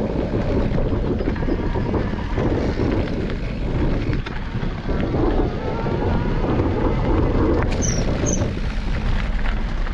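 Mountain bike tyres rolling fast over a gravel trail, with wind buffeting the microphone, a steady loud rumble.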